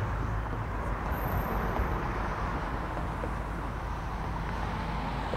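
A lull between fireworks: steady, even outdoor background noise with no distinct bursts, ended by the sharp bang of a firework shell right at the very end.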